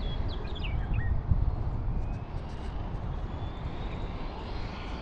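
Strong wind buffeting the microphone, with a few short bird chirps in the first second. From about two seconds in, the faint high whine of an Arrma Limitless V2 RC speed car's brushless electric motor rises steadily in pitch as the car accelerates on a speed run.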